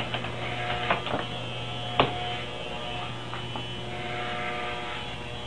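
Corded electric hair clippers buzzing with a steady hum as they shave close over a head of short hair. A few sharp clicks sound over the hum, the loudest about two seconds in.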